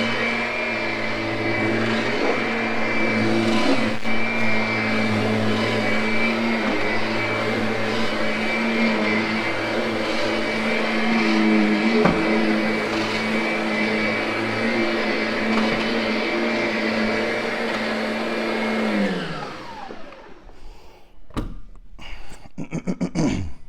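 Kirby upright vacuum running steadily with its brush roll on carpet, with a steady motor whine. Near the end the motor's pitch falls away as it spins down, and a few knocks follow.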